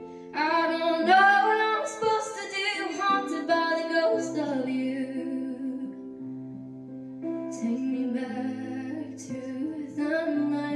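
Background music: a song with a singing voice over sustained instrumental chords and a bass line, the voice coming in about half a second in, pausing in the middle and returning near the end.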